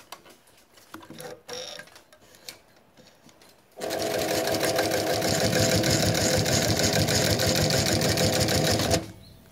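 New-Tech GC-0303 industrial walking-foot sewing machine with servo motor stitching through four layers of webbing: a fast, steady clatter of the needle and feed that starts about four seconds in and stops abruptly near the end, after a few light handling sounds.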